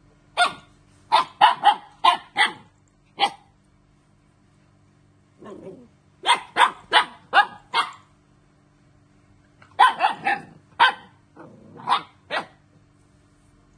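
Puppy barking in play: short, sharp barks in three quick bursts of about five or six each, with a brief low growl before the second and third bursts.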